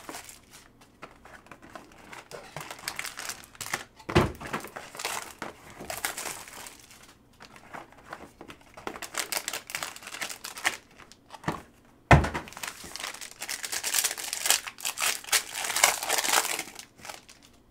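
Plastic and foil wrapping crinkling and rustling in the hands as a box of trading cards is unwrapped, with two dull knocks about four and twelve seconds in.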